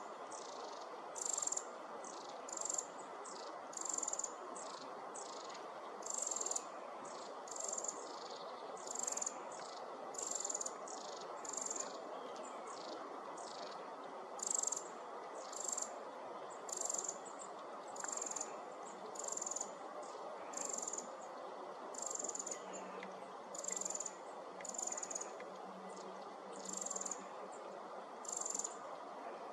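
Eurasian wren calling: short, high notes repeated roughly once a second, over a steady low hiss.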